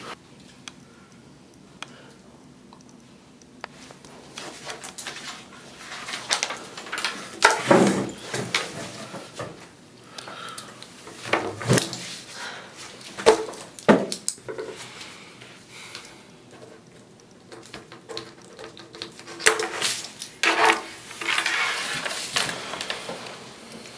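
Papers and a pen being handled on a table: scattered rustles, clicks and soft knocks at irregular moments, starting a few seconds in.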